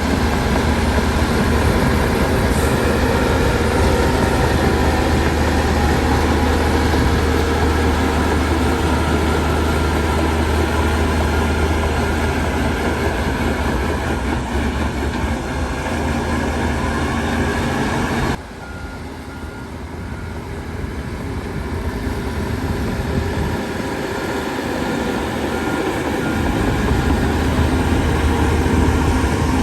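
Heavy diesel earthmoving machinery running steadily with a deep engine hum. The sound drops sharply about 18 seconds in, then gradually builds back up.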